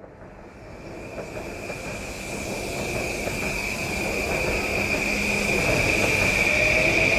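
JR Yamanote line electric train pulling out of the station, growing steadily louder as it gathers speed. A steady high tone runs throughout, and a motor whine starts rising in pitch near the end as the train accelerates.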